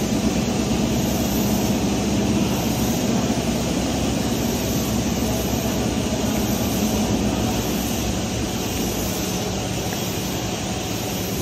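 Steady, loud industrial drone with a low hum in a fabrication shed while stainless steel pipe is TIG welded, easing off slightly near the end.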